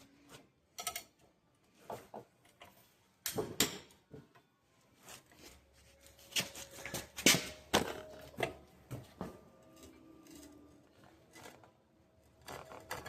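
Irregular metallic clanks and knocks of hand tools working on the steel cutter bar of a disc mower, a dozen or so sharp strikes scattered through, the loudest about seven seconds in.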